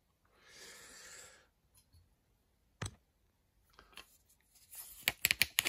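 Small watchmaking tools and parts being handled in their case: a brief scraping rustle, a single sharp click, then a quick run of clicks near the end.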